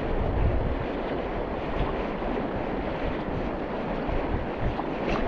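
River current rushing steadily over a shallow rocky run, with wind buffeting the microphone in uneven low gusts.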